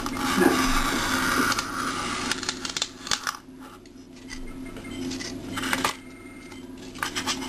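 Utility knife blade scraping as it is drawn through a sheet of white board, then the board being shifted and handled, with a few light clicks near the end.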